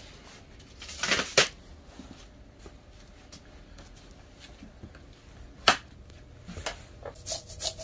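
Sharp knocks of a knife and a rockfish against the counter: two close together about a second in and one loud knock just before six seconds. Near the end come quick, short scraping strokes as the knife starts scaling the fish.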